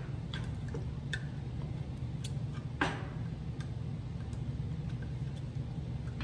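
Small clicks and taps of a metal can of wood stain being handled and worked open by hand, with one sharper click about three seconds in. A steady low hum runs underneath.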